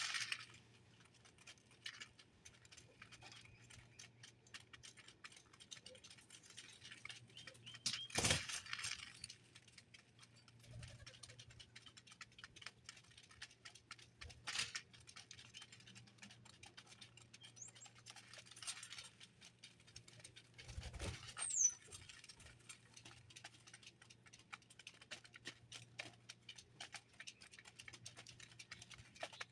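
Small birds at a feeder: scattered light pecking and scratching clicks, with faint brief chirps and a few louder rustling flutters.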